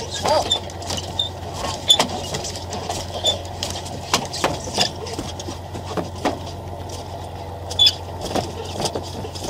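Fishing boat's engine running with a steady low hum, under scattered knocks and clatter of gear on the deck and a few short high squeaks. The loudest knocks come about two seconds in and near the end.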